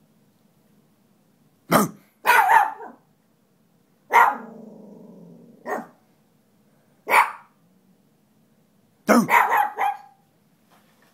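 Dogs barking in short bursts of one or a few barks, roughly every two seconds, with one bark about four seconds in drawn out into a low growl.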